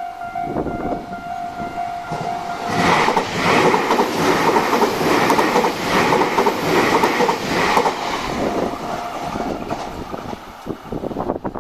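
Tobu 60000 series electric train passing over a level crossing. A steady crossing-alarm tone is drowned out about three seconds in as the train arrives. Then comes the loud rush of the train with its wheels clacking over the rail joints, strongest for about five seconds, fading with a last run of clacks near the end.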